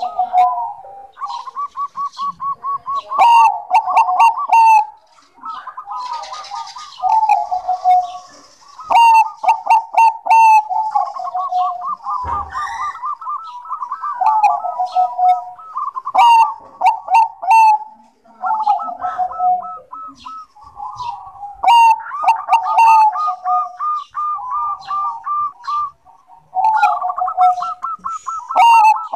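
A Bangkok-type zebra dove (perkutut) singing its song, repeated every few seconds: each phrase a quick stuttering run of notes followed by lower coos that fall in pitch.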